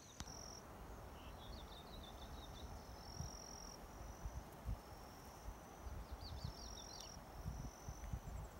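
Quiet outdoor ambience. Birds call in two short runs of quick chirps, over a high steady tone that starts and stops several times, with low rumbles on the microphone.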